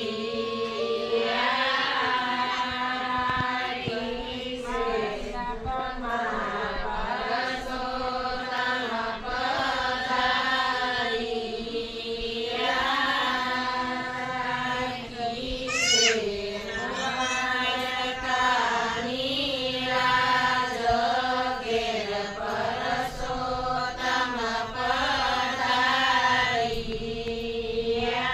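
Hindu devotional chanting with long held notes over a steady low tone, going on without a break, with a brief rising glide about halfway through.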